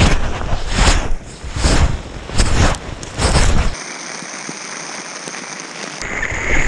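Repeated heavy thumps of someone jumping on a hail-covered trampoline, heard through a body-worn GoPro, about one every 0.8 s and five in all. Near 4 s they stop and a steady, quieter hiss follows.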